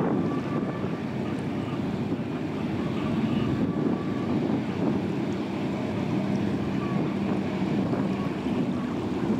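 High-speed catamaran ferry passing close, its engines giving a steady low drone with a faint hum over the wash of water, mixed with wind buffeting the microphone.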